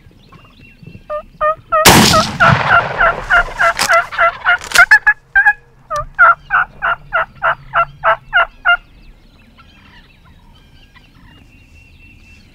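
A single shotgun blast about two seconds in, followed by wild turkeys calling in a rapid run of loud, sharp notes, about four a second, that stops near nine seconds.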